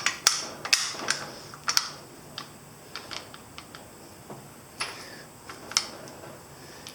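Irregular light clicks and taps of small hard parts being handled and fitted, a quick run of them at first and then a few scattered ones, as a motorcycle handlebar control housing is put back together.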